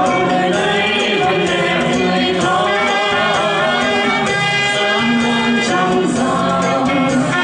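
A song sung by several women's voices together into microphones, over amplified accompaniment with a steady beat.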